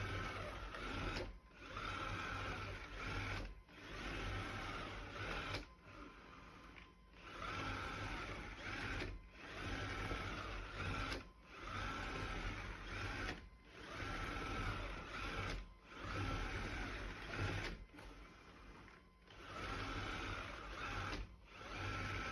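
Small motor of a Dreame L10s Ultra robot vacuum-mop running in repeated runs of about two seconds, each broken off by a short pause, with a mechanical whirr.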